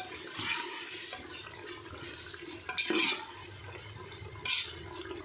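Wet tomato-and-spice masala sizzling and bubbling in a pressure cooker pot over a low flame while a metal ladle stirs it. The ladle scrapes against the pot a few times, loudest about three seconds in and again near the end.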